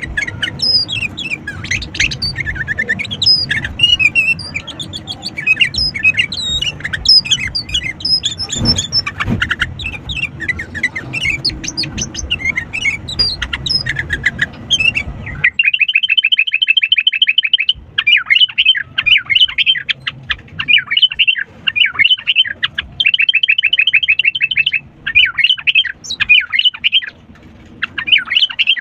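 Sooty-headed bulbuls (kutilang) singing busily, a dense run of quick chirps and warbled phrases. About halfway through, the sound switches to a cleaner recording of fast, even trills.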